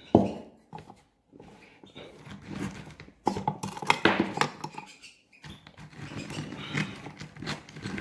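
Clicks and knocks of a plastic electric spice grinder being opened and hard pieces of dried cuttlebone being handled for loading into its cup, with a sharp click just after the start and scattered clatter after it.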